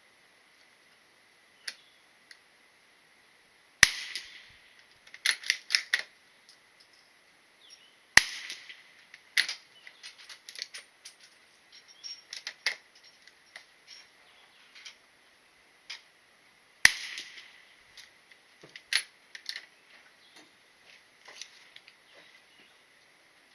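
Gunshots: three loud single shots spaced several seconds apart, with many quieter cracks in between, including a quick run of about four shortly after the first loud shot.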